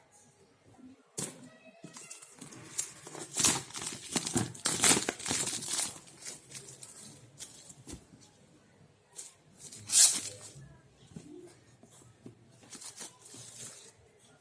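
Packaging being torn open and crinkled by hand, a run of irregular rustling and tearing noises. They are loudest in a long stretch from about three to six seconds in, with one sharp burst about ten seconds in.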